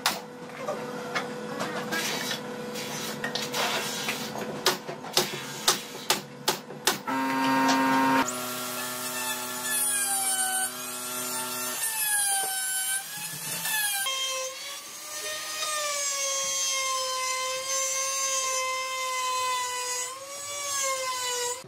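Pneumatic brad nailer firing a quick series of shots into a wooden panel frame. About seven seconds in, a handheld electric plunge router starts and runs with a high whine that sags and recovers in pitch as it cuts along a board.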